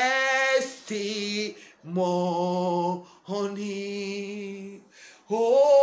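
A woman singing a worship song alone, unaccompanied, drawing out the word "testimony" in several long held notes with short breaths between them.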